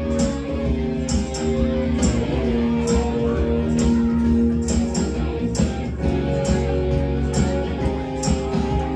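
Live rock cover band playing loudly through a PA: guitar and a drum kit, with a sharp drum hit about once a second over held guitar notes.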